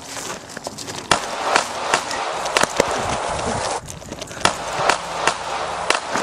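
Footsteps running on a hard surface, about two sharp footfalls a second, over a steady rushing noise.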